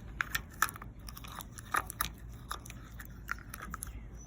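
Irregular clicks and crackles of an Elf Bar BC5000 disposable vape being pried apart and picked at by hand, its plastic casing and insides handled to get at the wires.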